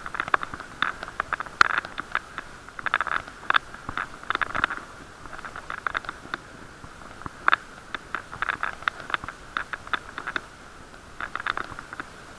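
Irregular knocks and rattles of a moving bicycle, picked up muffled through an action camera's waterproof case as the bike jolts over the road.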